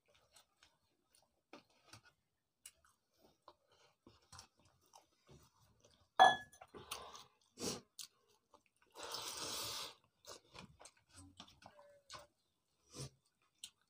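Close-up eating sounds of a person eating watered rice and omelette by hand: soft scattered chewing and mouth clicks. About six seconds in comes a sharp ringing clink of the stainless steel pot, then another knock, and a noisy burst lasting about a second near nine seconds.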